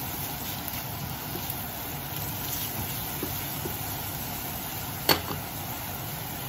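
Onions sautéing in hot oil in a frying pan, a steady sizzle over a low steady hum, with one sharp click or knock about five seconds in.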